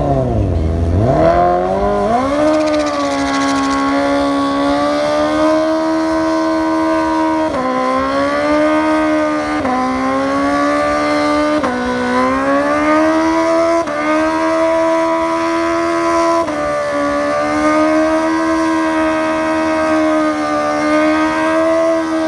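Kawasaki Ninja sport motorcycle engine accelerating hard through the gears: the pitch climbs and then drops sharply at each upshift, about five shifts in all, and holds fairly steady in top gear for the last several seconds.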